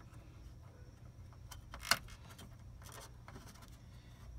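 Hands working rubber fuel hoses and metal fittings onto a fuel pump assembly: faint rustling and light clicks, with one sharper click about two seconds in.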